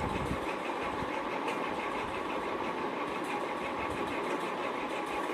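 A machine running steadily, with a faint, regular pulsing.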